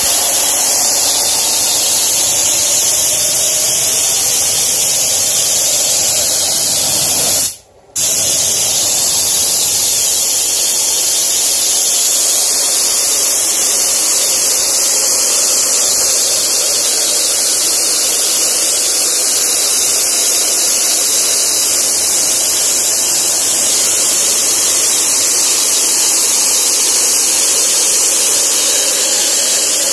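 Top-load spray gun on a compressed-air line, run at about 60 to 90 PSI, hissing steadily as it sprays paint. The hiss cuts out for under a second about eight seconds in, then resumes.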